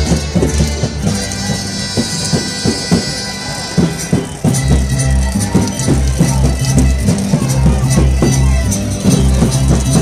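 Music with a steady beat, bass line and shaker percussion, played loud over a large outdoor PA system; the bass gets heavier about halfway through.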